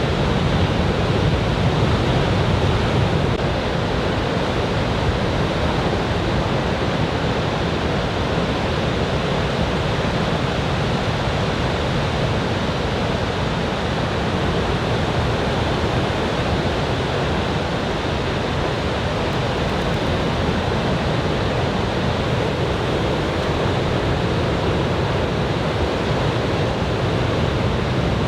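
Ocean surf breaking on a beach in a steady, unbroken rush, from a typhoon swell.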